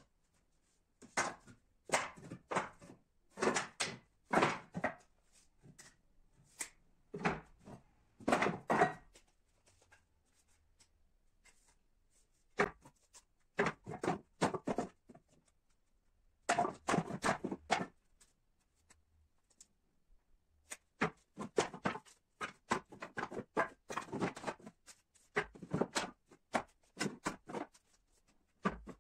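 Wooden offcuts knocking and clattering against one another as they are lifted and shuffled about in a scrap bin. The knocks come in irregular clusters, with short lulls in between.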